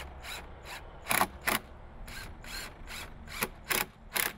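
DeWalt cordless impact driver driving screws into a vinyl fence post, in a series of short bursts.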